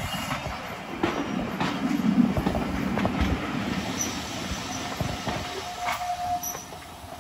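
Heritage steam-hauled railway carriages rolling round a curve: wheels click over the rail joints, with a brief high squeal from the wheels on the curve near the end.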